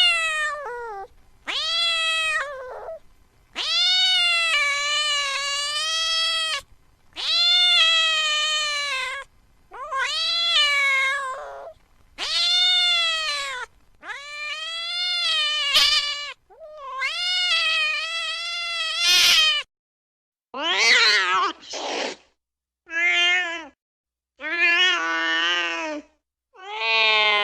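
A domestic cat meowing over and over, about a dozen drawn-out meows each lasting one to nearly three seconds, with short pauses between them. Toward the end the meows become shorter and some are lower-pitched.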